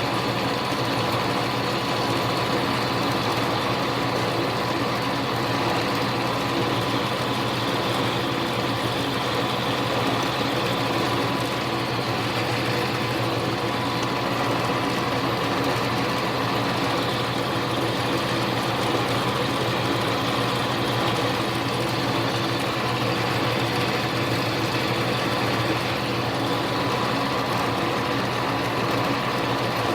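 Small metal lathe running steadily while a small drill bit bores a hole in a tiny bushing, an even motor hum with a steady tone.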